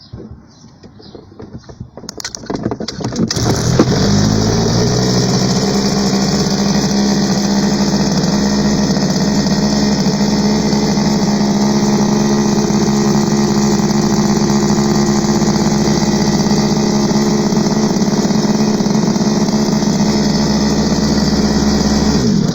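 Small gasoline engine of a large-scale RC boat being started. It sputters unevenly for a few seconds, catches and rises in pitch, runs loud and steady for about eighteen seconds, then cuts off suddenly.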